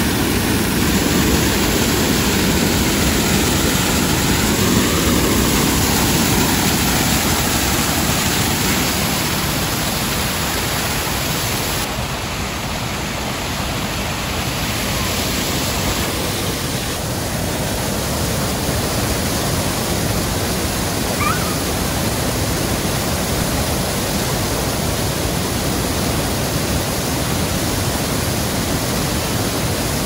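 Water pouring over a low stone-walled river weir and splashing into the shallow riverbed below: a steady rush of falling water.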